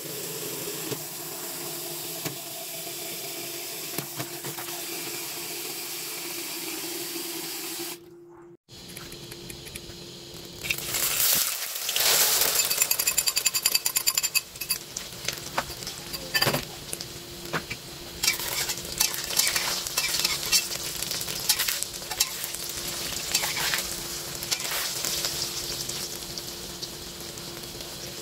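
Water running into a plastic bowl of Napa cabbage in a sink. After a cut, about ten seconds in, a seasoned egg mixture starts frying in hot oil in a wok, sizzling steadily, while a metal spatula scrapes and clinks against the wok, busiest a few seconds after the frying starts.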